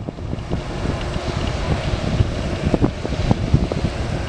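Wind buffeting the microphone in uneven gusts, over the steady rushing hum of a taxiing twin-engine wide-body jet airliner's engines at low thrust.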